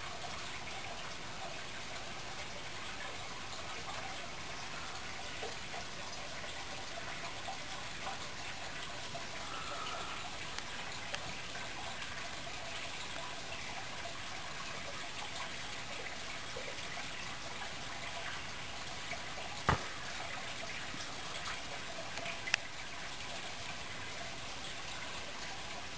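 Aquarium water bubbling and trickling steadily as air bubbles rise through the tank. There are two short, sharp clicks in the last third.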